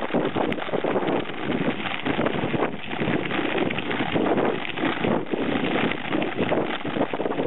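Wind rushing over the microphone of a bike-mounted camera on a moving mountain bike, mixed with tyre noise and rattling from riding a dirt track.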